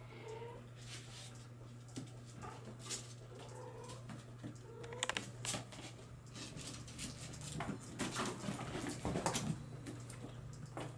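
Bengal kittens giving a few short, bending mews, among scattered clicks and scuffling of paws on a hard floor, over a steady low hum.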